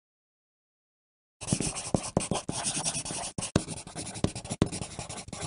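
Pencil writing on paper: a dense scratching run of quick strokes and taps that begins about a second and a half in, after a dead-silent gap.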